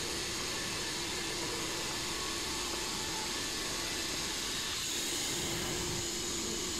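Wood-Mizer LT15 portable band sawmill running steadily, a constant machine noise with a faint low hum, as the saw head travels along the log.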